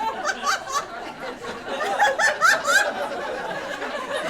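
Audience laughter: short, repeated bursts of laughing voices.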